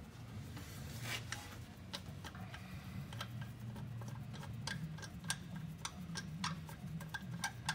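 Irregular sharp clicks and taps, about one or two a second, from hand work on the driveshaft U-joint bolts at a truck's power divider input yoke, over a low steady hum.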